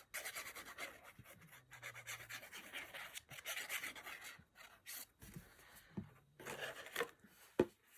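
Faint, irregular scratchy rubbing on cardstock as a glue nozzle is drawn along the card and the paper is handled, with a sharp tick near the end.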